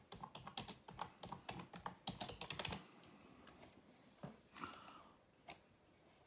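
Typing on a computer keyboard: a fast run of keystrokes for about the first three seconds, then a few single key clicks.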